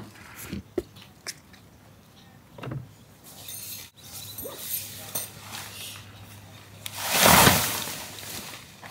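A nylon pop-up tent springing open: a sudden loud rush of fabric about seven seconds in, fading over a second or so, after a few faint rustles of the folded tent being handled.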